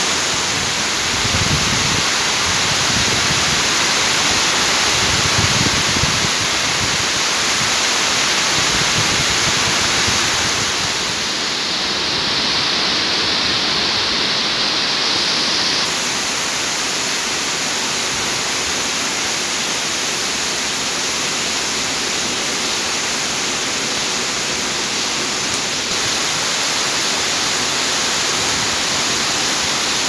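Heavy rain pouring down in a dense, steady hiss, with a few low rumbles in the first several seconds. The hiss shifts abruptly twice, about eleven and sixteen seconds in.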